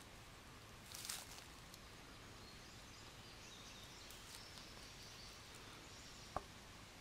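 Quiet outdoor background with a brief rustle about a second in, faint high chirps in the middle, and a single sharp click near the end.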